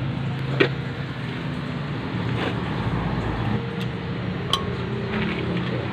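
Metal parts and tools clinking during wheel hub reassembly: two sharp clinks, the second ringing briefly, over a steady low mechanical hum.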